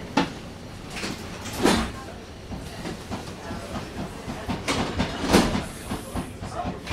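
VBZ Cobra tram running along its track, heard on board: a steady running noise broken by four sharp clattering knocks from the wheels over rail joints.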